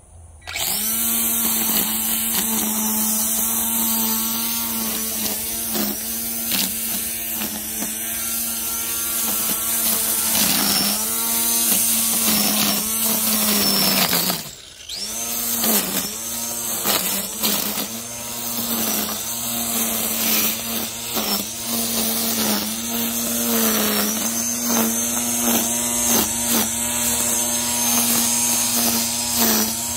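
Wild Badger Power 40V brushed cordless string trimmer running at full speed with a steady high whine as its line cuts grass. The pitch sags and recovers several times as the line meets the grass. About halfway through the motor is released and winds down briefly, then spins back up.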